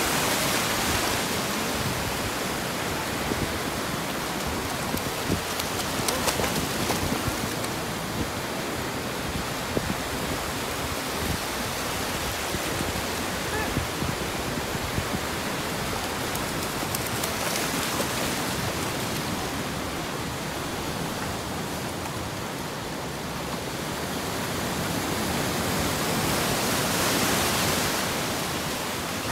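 Ocean surf breaking and washing up a sandy beach: a steady rushing that swells a few seconds before the end.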